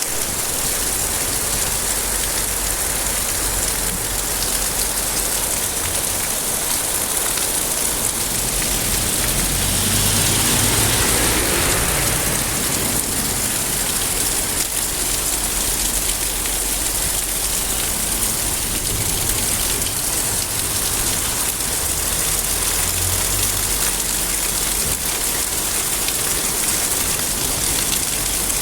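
Steady rain falling, a dense even hiss of drops on surfaces, swelling a little louder for a couple of seconds about ten seconds in.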